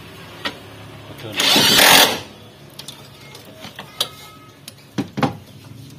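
Metal clinks and knocks from a hoist chain and an engine block being guided into a car's engine bay, with one loud rush of noise lasting under a second about one and a half seconds in.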